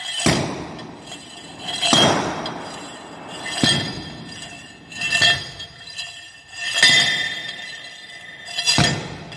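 Hand soil compaction rammer (the 10 lb, 18 in drop rammer of ASTM D1883) falling inside its metal guide tube onto soil in a steel CBR mould. There are six blows about one and a half seconds apart, each a thud with a metallic clink that rings on briefly. The first of five layers is being compacted at 56 blows per layer.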